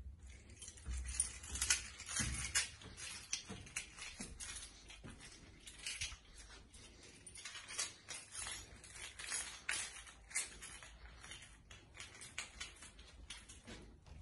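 Soft, irregular patter of footsteps climbing carpeted stairs and then walking along a carpeted landing.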